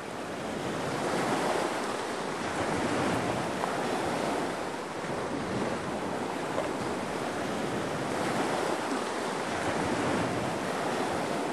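Small waves washing gently onto a sandy beach along the water's edge, with wind, fading in at the start.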